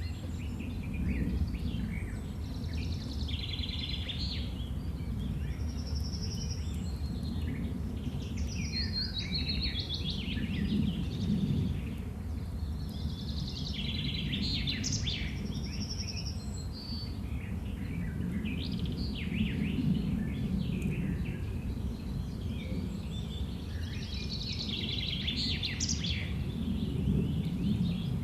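Songbirds singing and chirping in short, repeated phrases every few seconds over a steady low rumble of countryside ambience.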